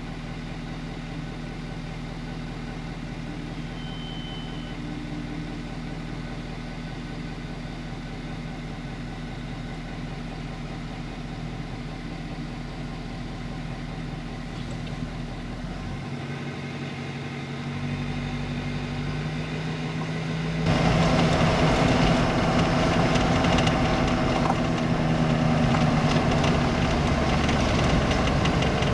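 Vehicle engine idling steadily. About two-thirds of the way through it pulls away and drives along the gravel road, and the sound grows louder, with the engine under way and tyres running over gravel.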